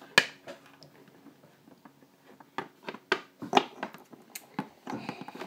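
Irregular light clicks and knocks as a plastic Littlest Pet Shop figure and miniature wooden chairs are picked up and set down on a wooden tabletop. The loudest knock comes about a quarter second in.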